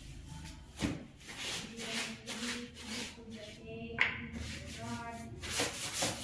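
Soapy wet clothes being scrubbed by hand against a concrete floor, in rhythmic rubbing strokes about twice a second, with a sharp knock about four seconds in.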